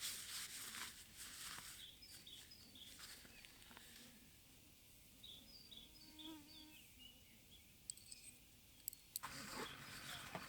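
Faint bird chirps: short, high calls repeated over several seconds, with a few sharp clicks near the end. A soft hiss fills the start and comes back near the end.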